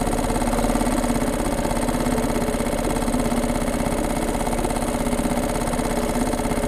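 Small Suzuki outboard motor on a fishing kayak running steadily at trolling speed, an even drone with a fast, fine pulse.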